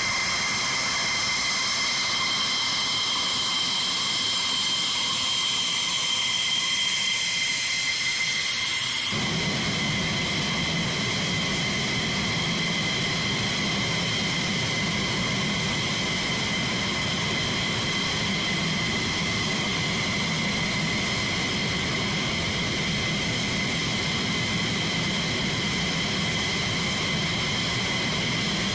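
F-15E Strike Eagle twin turbofan jet engines running at low ground power, a steady high-pitched whine with several held tones over a rushing noise. About 9 s in, a deeper rumble comes in under the whine and stays.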